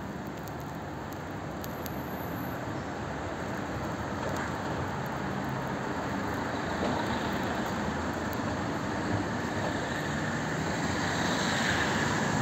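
Road traffic on a town street: the noise of passing vehicles, growing slowly louder as one comes nearer.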